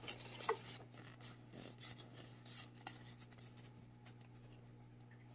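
Faint rustling and light ticks of a stack of Pokémon trading cards being shuffled and slid against one another by hand.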